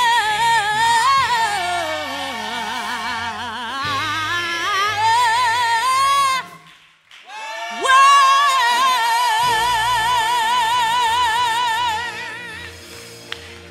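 Female gospel singer singing long melismatic runs with heavy vibrato over a quiet low accompaniment; after a short break about halfway through she holds one long vibrato note, and the music fades near the end.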